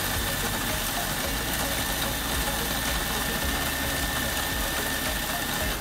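Food processor motor running at speed, grinding biscuits, oats and almond flakes into crumbs for a cheesecake base; it stops abruptly at the end.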